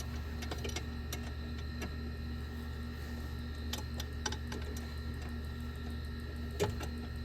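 Scattered light clicks and taps of parts being handled during hand work on a golf cart's throttle cable, over a steady low hum.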